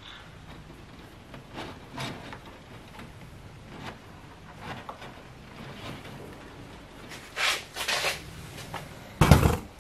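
Hands working wiring and plastic interior trim inside a car: scattered rustles, scrapes and light knocks, ending with one loud clunk near the end.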